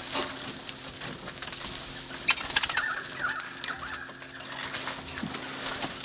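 A flock of wild parrots, mostly Australian king parrots, fluttering and moving around a wooden deck: scattered sharp clicks and taps, with a few short squeaky chirps about three seconds in.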